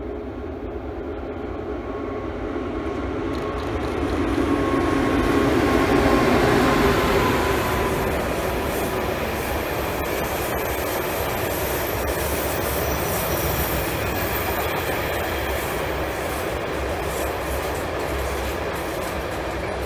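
ÖBB Taurus electric locomotive passing at the head of a freight train, loudest about six seconds in, followed by the steady rumble and rattle of hopper wagons rolling by. A thin high wheel squeal sounds for a few seconds around the middle.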